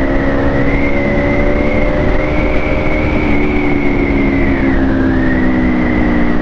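Aprilia Tuono V4 Factory's 1100 cc V4 engine and exhaust pulling at a fairly steady engine speed that climbs gently, easing off a little about five seconds in. It runs over a steady rush of noise.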